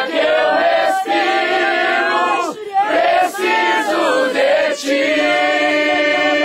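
A group of people singing a worship song together in Portuguese, many voices at once; from about five seconds in they hold a long steady note.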